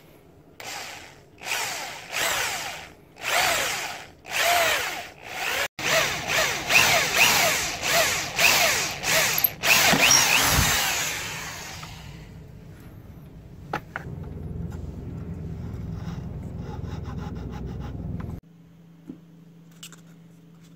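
Electric drill boring into a wooden block, its trigger pulsed in short bursts about once a second. It then runs longer and settles into a quieter steady whir that cuts off abruptly near the end.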